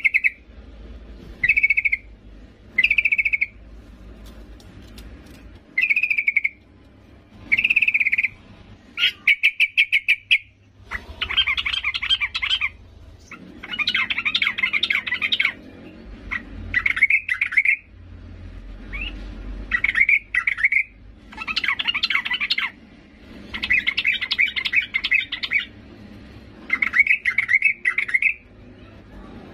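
Female yellow-vented bulbul (trucukan) calling. Short bubbly notes come about every one and a half seconds at first, then from about nine seconds in they give way to longer bursts of rapid chattering. The calls are a female calling a male.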